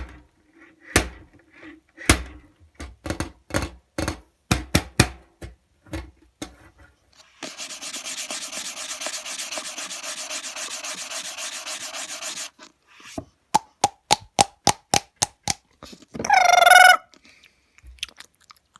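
A run of sharp taps and clicks, then about five seconds of steady scratchy rubbing, then more quick taps. Near the end comes a short wavering pitched squeak.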